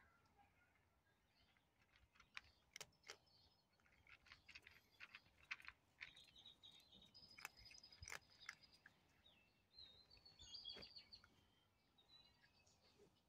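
Faint, irregular crunching of a cat chewing dry kibble, with birds chirping in the background.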